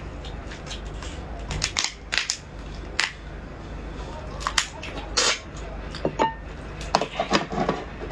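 A raw swimming crab's shell cracking and snapping as it is pried apart by hand and bitten. There are a dozen or so sharp, irregular cracks and crunches, more of them in the last few seconds.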